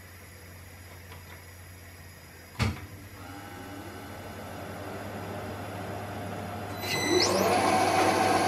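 Milling machine switched on with a click, its spindle motor then running and growing steadily louder. Near the end a rising whine and a louder, busier cutting sound come in as the stubby left-hand drill starts into the broken stud.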